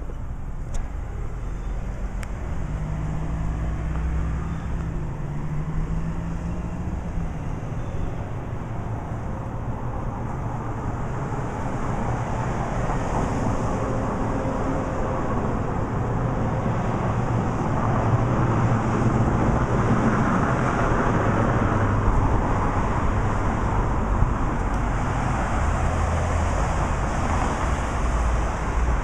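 Street traffic: cars driving and passing on the road, a steady hum of engines and tyres that grows louder through the second half.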